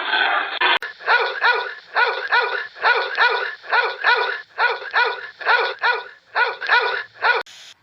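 A dog barking in quick, even yaps, about three a second, after a brief noisy stretch that cuts off under a second in; the barking stops abruptly shortly before the end.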